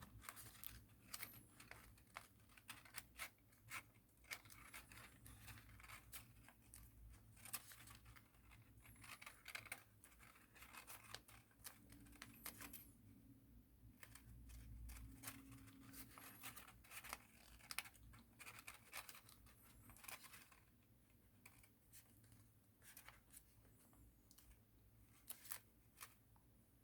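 Faint rustling and crackling of paper being folded and creased by hand, many short sharp crinkles with a few brief pauses.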